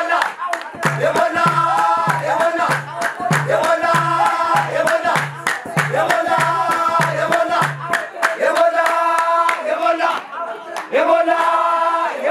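A group of men singing a Gurage wedding song in short, repeated chanted phrases, with sharp hand claps. For the first two-thirds a kebero drum beats low and steady, about twice a second.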